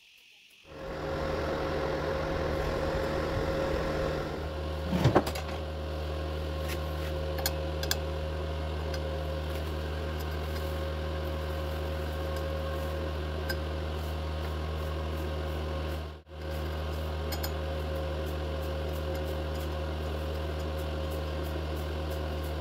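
Steady electrical hum of an idling stick-welding machine, no arc struck. A short clatter comes about five seconds in, and the hum drops out for a moment about sixteen seconds in.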